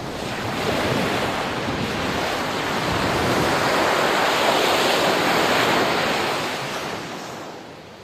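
Ocean waves washing on a shore, swelling to a steady rush and then fading out near the end.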